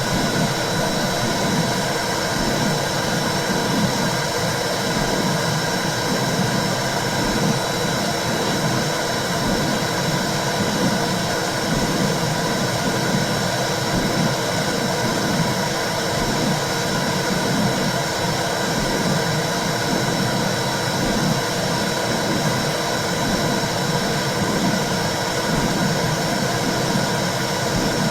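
Womb sound for soothing a baby: a steady, dense whooshing with a low pulsing swell that repeats throughout, and a thin steady high tone above it.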